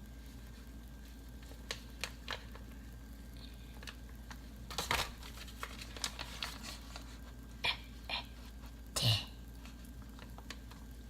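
Plastic packet of smoked salmon being handled and pulled open: scattered soft crinkles, rustles and small clicks, busiest about halfway through, with a louder one near the end.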